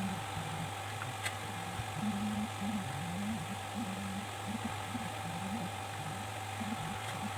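Steady low electrical hum with a constant mid-pitched tone, faint muffled voices in the background, and a single sharp tick about a second in.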